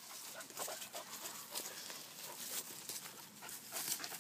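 Faint scuffling and rustling in leaf litter and undergrowth from a leashed German hunting terrier straining and moving about, with a few faint short dog sounds.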